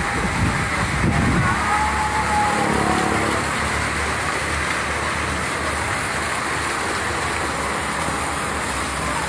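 Steady rushing outdoor ambience, with low buffeting of wind on the microphone in the first second and a half.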